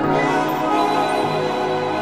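Slow new-age meditation music with sustained layered tones, changing chord at the start.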